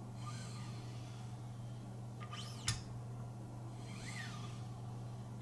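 Kangaroo-leather strop of a Wicked Edge sharpener drawn along the Benchmade Pagan's blade in slow finishing strokes, about three passes. Each pass is a soft swish with a faint squeak that rises and falls. A light click comes about two and a half seconds in, over a steady low hum.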